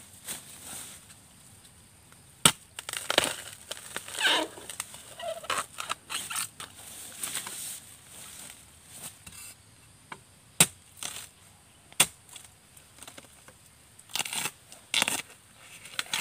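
Long-handled metal digging blade chopping into the base of a bamboo shoot, with a few sharp strikes and crunching of the shoot's fibres as it is cut and pried loose, plus rustling of leaves and dry litter.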